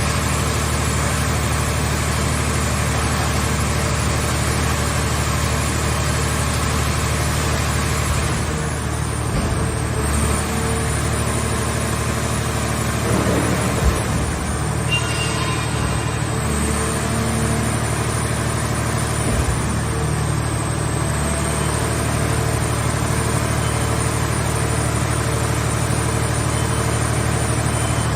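Engine of a mobile hydraulic car baler running steadily, with a high whine over it and a few short knocks about halfway through.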